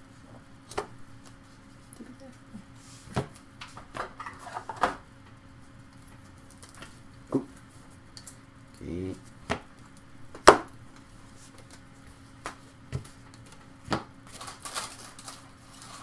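Trading cards being handled and tapped on a table: scattered light clicks and taps, the sharpest about ten seconds in, over a steady low hum.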